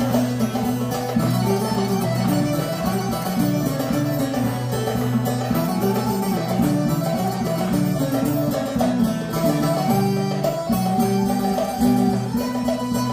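Live Turkish folk dance music from a small band led by plucked long-necked lutes, playing a steady, continuous melody.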